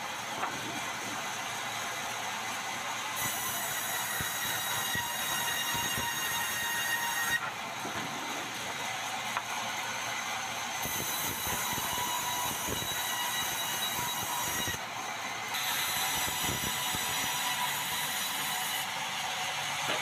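Sawmill band saw running and cutting red meranti planks: a steady mechanical whine and cutting noise. Its high hiss drops out and comes back every few seconds as boards pass through the blade.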